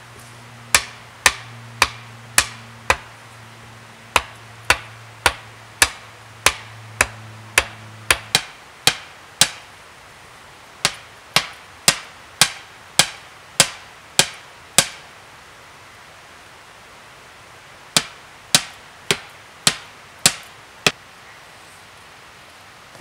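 Hammer blows knocking wooden stakes into the ground, sharp and evenly spaced at about two a second. They come in four runs of five to ten strikes, with short pauses between and a longer one a little after the middle.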